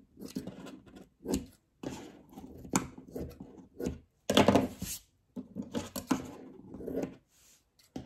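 Scissors snipping through layers of tulle against a cutting mat in short, irregular cuts, one after another, with a longer, louder stretch about four seconds in.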